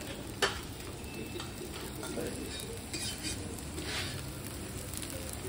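Chopsticks and dishes clinking at a dinner table, one sharp clink about half a second in and a few softer ones later, over a steady faint sizzling hiss.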